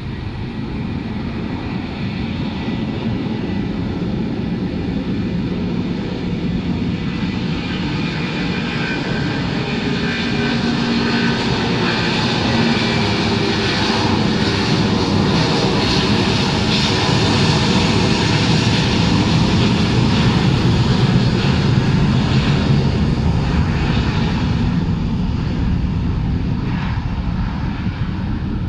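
Airbus A330-223F freighter's twin Pratt & Whitney PW4000 turbofans at takeoff thrust during the takeoff roll: a steady jet roar that grows louder as the plane passes, peaks about three-quarters of the way through, then eases as it moves away down the runway.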